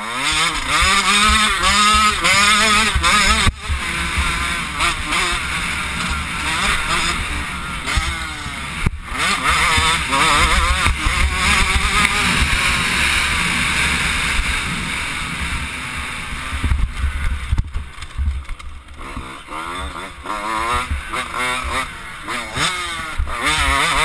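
85cc two-stroke motocross bike engine revving hard under the rider, its pitch climbing and falling again and again. It breaks off briefly about three times, as the throttle is shut or a gear is changed.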